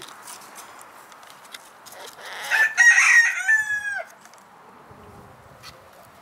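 A rooster crowing once, a little over two seconds in: a single loud crow lasting under two seconds that holds its pitch and then drops off at the end.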